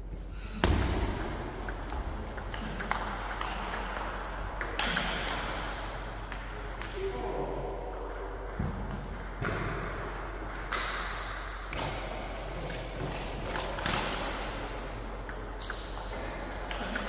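Table tennis rally: the plastic ball clicking sharply off the rackets and the table, many hits at an irregular pace.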